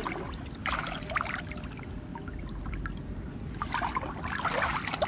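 Hands and forearms sloshing and splashing through shallow muddy water while groping along the bottom for fish, in two bouts, about a second in and again near the end, over a steady low rumble.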